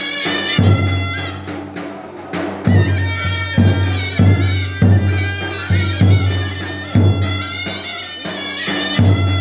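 Rumeli folk dance music: a reedy, bagpipe-like wind melody with quick ornaments over steady low held notes, and a drum striking at a regular but uneven beat.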